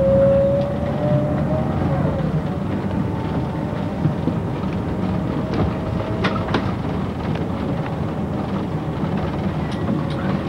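City bus engine running as the bus drives, heard from inside the cab, with a whine that rises and then falls in the first couple of seconds. A few sharp clicks or rattles come past the middle.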